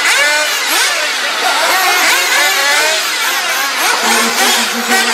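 Several 1/8-scale nitro RC buggy engines revving, their high-pitched whines overlapping and repeatedly rising and falling in pitch.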